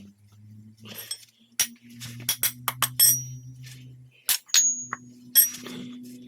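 Metal clinks and taps: about ten sharp strikes, some leaving a brief high ring, over a low steady hum.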